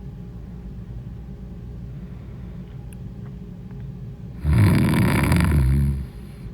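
A woman snoring: a low, steady rumble, then about four and a half seconds in one much louder snore that lasts about a second and a half.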